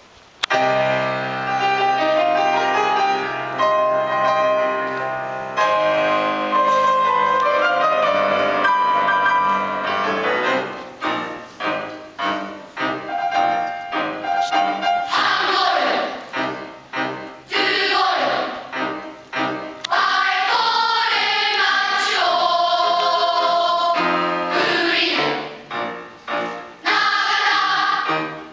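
A children's choir performing a song with instrumental accompaniment. The first part is an instrumental introduction of held chords, and the choir comes in about halfway through, singing together in unison.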